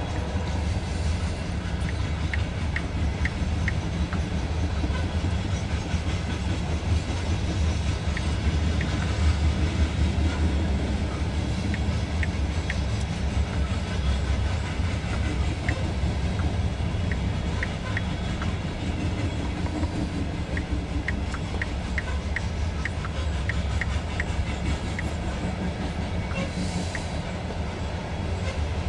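The cars of a loaded coal train rolling past: a steady low rumble of wheels on rail, with scattered light clicks.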